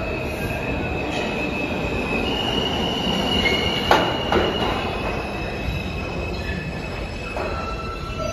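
R160 subway train pulling into a station: the cars rumble past under a high steady squeal that steps up in pitch a little over two seconds in, with two sharp clacks about four seconds in.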